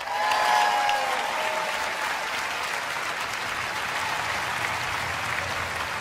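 Audience applauding right after a song ends, a steady dense clapping, with a few voices cheering in the first second and a half.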